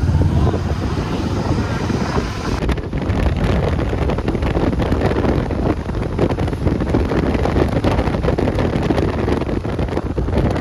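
Motorcycle riding at speed on the highway, with wind buffeting the microphone over the engine's low drone. The sound changes abruptly about three seconds in.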